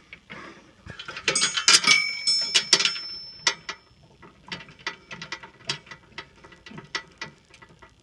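Steel parts and hand tools clanking and clicking metal on metal. A loud cluster of ringing clanks comes between about one and three seconds in, followed by sharp single clicks, irregularly spaced at about two a second.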